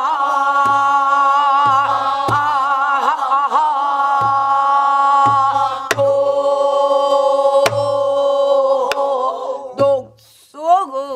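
A group of voices singing a long held line of a Namdo folk song in unison, with wide wavering vibrato. Scattered strokes on buk barrel drums sound under it. The singing breaks off about ten seconds in, and a single voice starts again just before the end.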